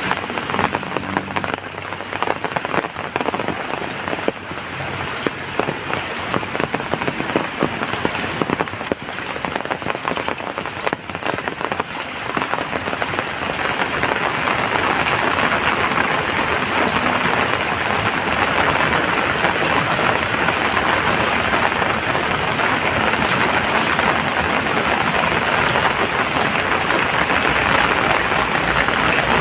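Rain falling, at first heard as many distinct drop impacts, then thickening about halfway through into a denser, louder, steady downpour.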